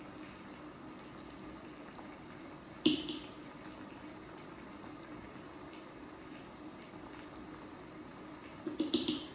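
Broth simmering steadily in an electric hot pot, a low bubbling hiss. One sharp click about three seconds in and a short clatter of clicks near the end.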